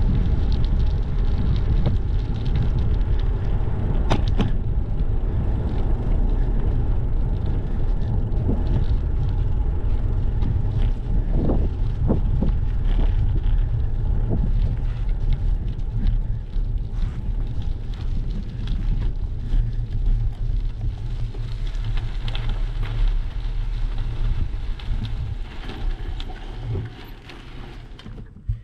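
Wind rushing over an action camera's microphone and bicycle tyres rumbling on pavement while riding, with a few sharp clicks along the way. The rumble dies down near the end as the bike slows to a stop.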